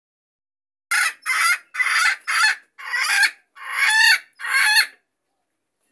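A chicken calling loudly: seven squawking calls of about half a second each in quick succession, the later ones rising in pitch, then stopping.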